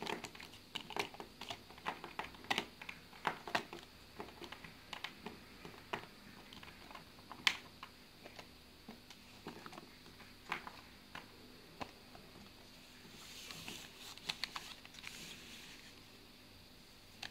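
Small plasticine cubes clicking and tapping irregularly as they are picked up off a wooden tabletop and dropped into clear plastic cases. Near the end there is a short stretch of rustling as the plastic cases are handled.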